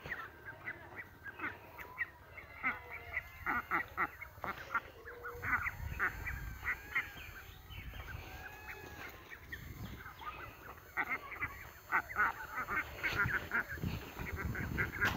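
A flock of domestic ducks quacking, many short quacks in quick overlapping runs, thinning out briefly now and then.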